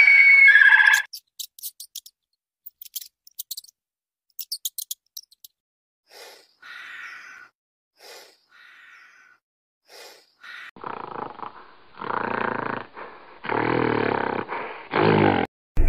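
A run of different animal calls: a bird call at the start, quick high clicks, short repeated calls, then several loud, low calls from a large animal in the last few seconds.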